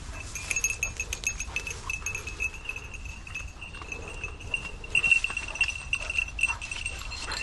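A small bell jingling continuously and unevenly, the kind worn by a hunting dog moving through the grass, with footsteps on the trail.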